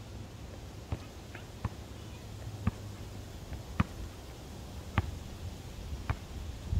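Basketball bouncing on a concrete court: about six single, sharp bounces, roughly a second apart, over a steady low background rumble.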